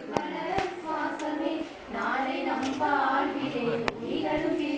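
Several voices talking over one another in a crowd, with a few sharp claps or knocks.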